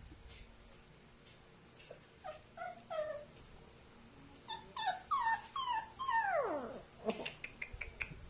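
Dog whimpering: a few short, high, falling whines, then a quick run of them, ending in one long whine that slides down in pitch. A few sharp clicks follow near the end.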